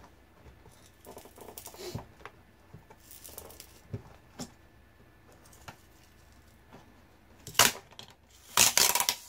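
Adhesive-backed switch membrane (touch pad) of a gas range being pried and peeled off its panel. Scattered light clicks and scrapes give way to louder noisy bursts about seven and a half and eight and a half seconds in.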